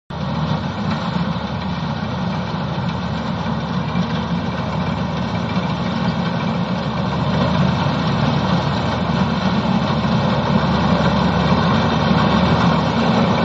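NS 929 combine harvester running, a steady engine drone with machinery noise that grows slowly louder.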